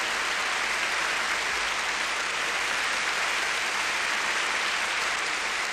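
Crowd applauding, a steady even clapping that eases off slightly toward the end.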